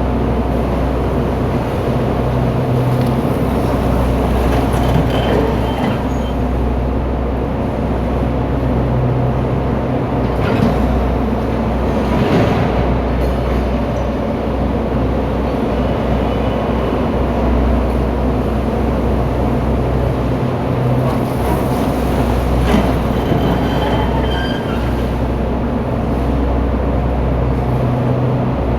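Heavy diesel machinery running steadily with a low rumble, with a few sharp clanks and brief high metallic squeals.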